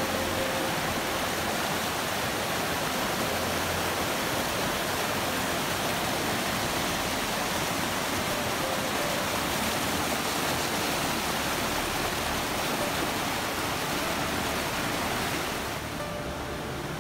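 Spring snowmelt creek rushing over rocks and small waterfalls: a steady, loud rush of water that eases slightly near the end.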